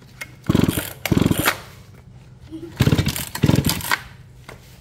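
Old chainsaw's recoil starter pulled four times in two pairs, the engine turning over through its compression strokes without starting. It is a compression check, which the seller reports as still very good.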